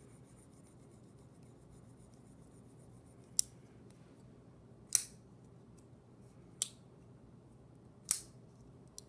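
Zero Tolerance 0630 folding knife's blade being flipped and snapping into place four times, about one and a half seconds apart, with a faint click near the end. Its ball detent has just been lubricated with Blue Lube.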